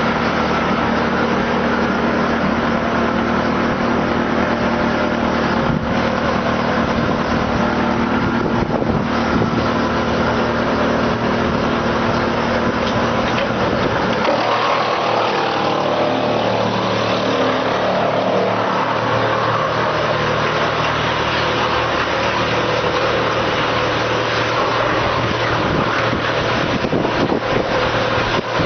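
Drum wood chipper running, a loud, steady mechanical drone with several constant humming tones. About halfway through the deepest rumble drops away and the pitch of the noise shifts slightly.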